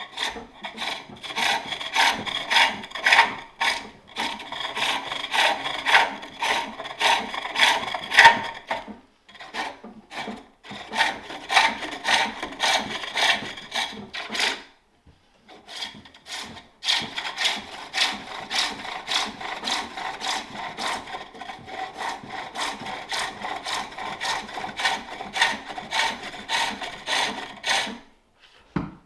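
Turning tool cutting a wooden bowl on a spring pole lathe: a quick, steady run of scraping cuts, one with each downstroke of the treadle, breaking off briefly twice and stopping near the end.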